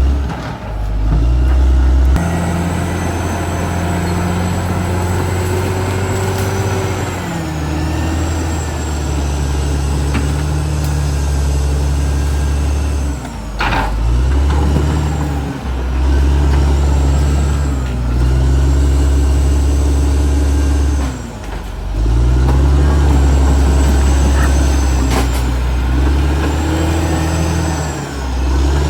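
Caterpillar D6R XL bulldozer's diesel engine running under working load, its note dropping and picking up again several times as the machine pushes. There is a single sharp knock about halfway through, and a faint high whine rises and falls over the engine.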